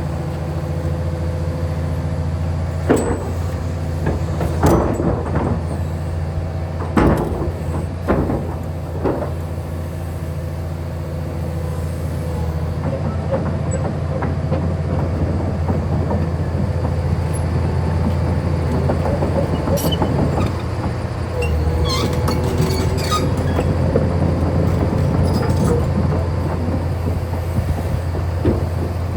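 Kobelco SK500 LC-9 hydraulic excavator running while being operated: a steady low diesel drone with sharp metallic clanks and knocks. There are several clanks in the first third and another cluster about two-thirds of the way through.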